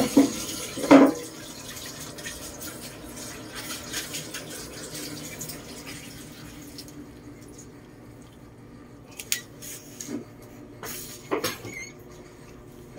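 Wet licking and rustling as a Lhasa Apso mother tends her newborn puppies on a towel, with a few short louder bumps near the start and again about nine to eleven seconds in.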